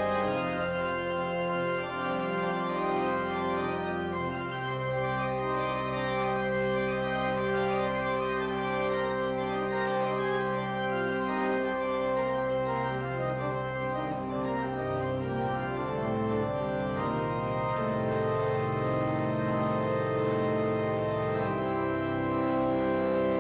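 Organ playing slow, held chords, the bass notes shifting every few seconds.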